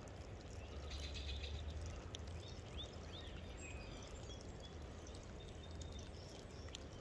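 Faint outdoor ambience: a few short, arching bird chirps about two to three seconds in, over a steady low rumble.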